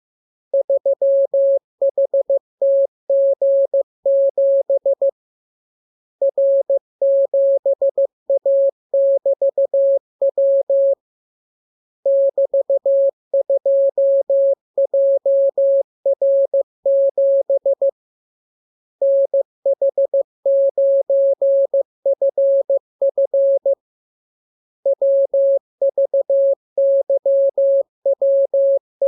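Morse code practice signal: a single pitch a little above 500 Hz keyed into dots and dashes. The characters come in runs of several seconds, with a pause of about a second between runs, four times.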